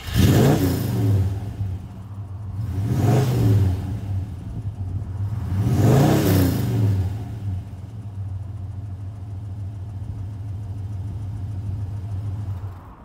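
Leyland P76's 4.4-litre V8 revved three times through its twin exhausts, each blip rising and falling in pitch about three seconds apart, then settling to a steady idle.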